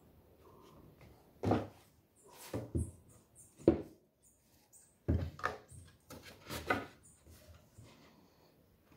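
Wooden boards knocking and scraping against each other as they are handled and fitted into a shoe rack's frame: a string of irregular knocks, the loudest about one and a half and three and a half seconds in.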